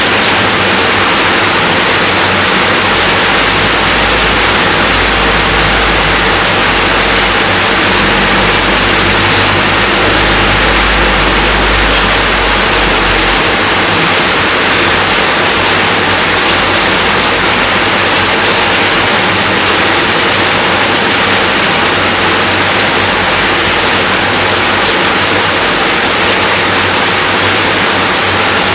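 Steady rainfall, an even hiss with no breaks, and a low rumble underneath that comes in a few seconds in and stops about halfway through.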